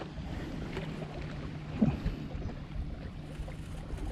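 Small waves lapping at the lake shore and wind on the microphone, with a low steady hum underneath and one short faint sound about two seconds in.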